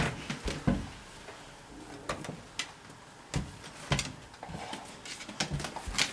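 A long cardboard tube carried crosswise in a dog's mouth knocking and bumping against door frames and walls, about eight irregular knocks.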